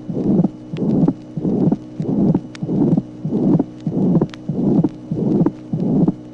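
Recorded heart sounds of a ventricular septal defect: a pansystolic murmur fills each beat, with a widely split second heart sound, repeating about twice a second.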